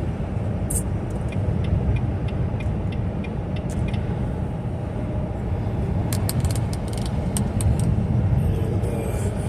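Semi truck running at highway speed, heard from inside the cab as a steady low rumble of engine and road noise, with scattered light clicks and rattles.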